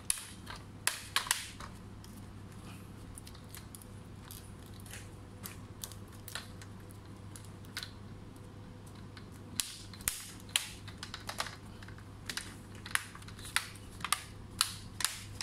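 Plastic screen bezel of an Asus FX504GD laptop pressed by hand onto the display lid, its clips snapping into place as sharp clicks: a few about a second in, then many in quick succession over the last six seconds.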